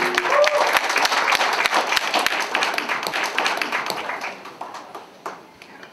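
Audience applauding, dense clapping that thins out and dies away over the last two seconds.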